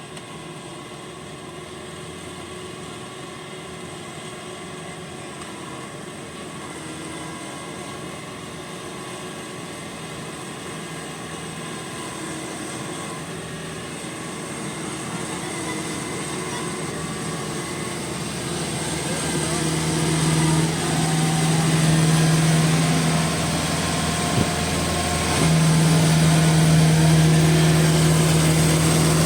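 Rice combine harvester's engine running under load, a steady drone that grows gradually louder as the machine comes closer and jumps in level about two-thirds of the way in.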